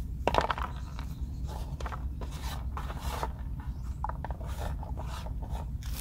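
Irregular rustling and scraping of dry leaves and small gathered seed pods being handled and moved over the ground, with a steady low rumble underneath.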